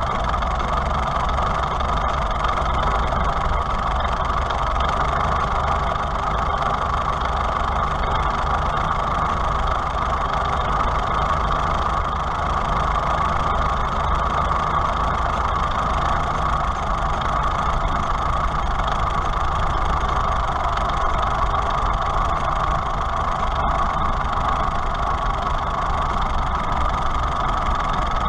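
Farmall H tractor's four-cylinder engine idling steadily, heard up close at the carburetor.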